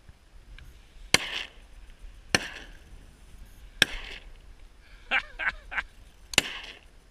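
Four shotgun blasts at uneven intervals, each with a short echo, from hunters firing at eider ducks over the sea. Between the third and fourth shot come three short cries.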